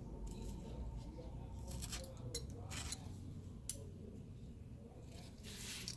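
Light clicks and short scratchy rustles, several through the middle and a longer rustle near the end: hands trimming and laying adhesive tape strips on a tablet frame.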